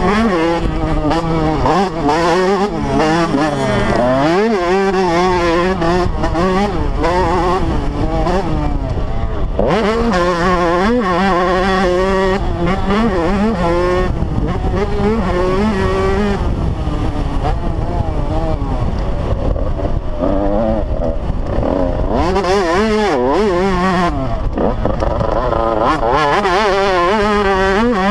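Motocross dirt bike engine revving hard and shifting gears, its pitch repeatedly climbing and dropping, with wind buffeting the microphone.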